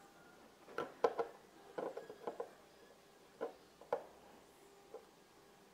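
Light clicks and taps of small objects being handled over a wooden table: tweezers, a dried beetle specimen and a silicone tube. A quick run of them begins about a second in, followed by a few spaced single taps up to about five seconds in.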